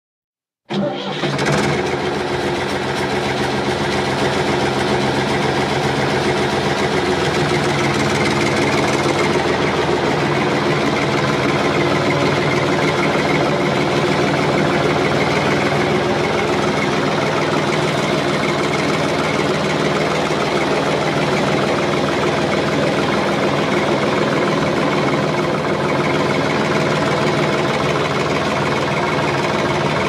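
A tractor's diesel engine comes in suddenly about a second in and then runs steadily at one even speed.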